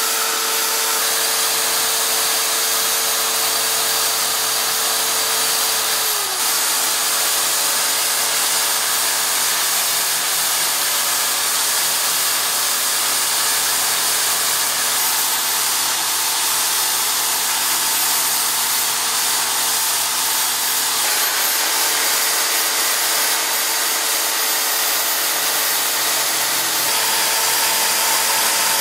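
Electric drill, mounted horizontally as a mini lathe, running steadily with a whine. It sands wood against a disc in the chuck and bores into a wood block. The whine dips briefly about six seconds in.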